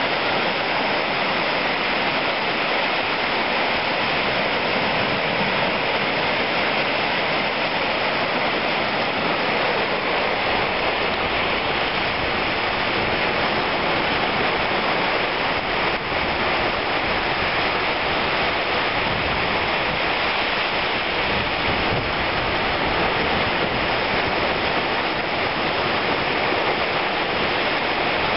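Steady, unbroken rush of ocean surf washing up the beach.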